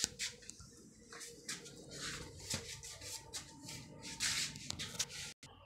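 Handling noise: a string of irregular short rustles and knocks as a handheld phone camera is moved about.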